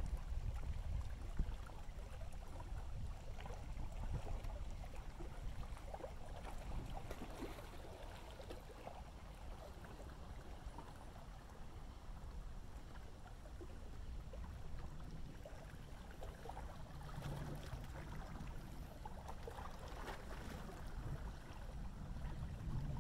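Thunderstorm over a river: a low, uneven rumble of distant thunder that swells again near the end, with faint lapping of water.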